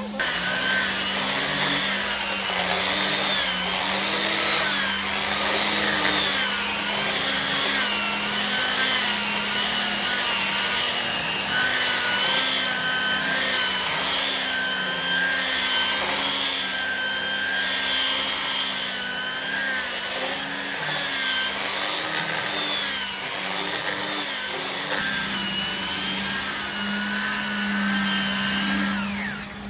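Electric angle grinder fitted with a sanding disc, running as it sands a solid-wood tabletop, with the disc rubbing across the wood grain. Its motor whine wavers up and down every couple of seconds over a steady low hum.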